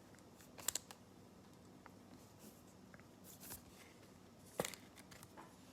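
Faint clicks and rustles of football trading cards being handled and slid through a pack, a few short scrapes with the sharpest one about four and a half seconds in.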